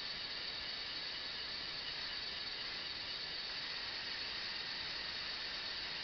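Small LEGO Technic electric motors and gears whining steadily as they drive the boom upward, a high, even whine over hiss.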